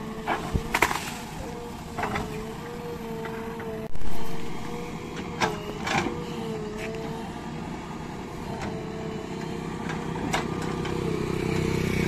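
JCB 3DX backhoe loader's diesel engine and hydraulics running with a steady, slightly wavering whine as the backhoe arm digs at the roadside bank. Sharp knocks and cracks come as the bucket works in among tree branches, with one loud hit about four seconds in. The engine gets louder under load near the end.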